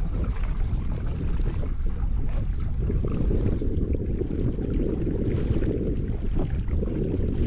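Kayak being paddled on a river: water splashing from the paddle blades and running along the plastic hull, over a steady low rumble of wind on the microphone.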